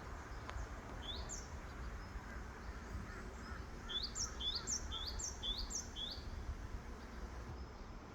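A wild bird singing: a single rising high chirp about a second in, then a quick run of five paired chirps about four seconds in, over a faint steady hum.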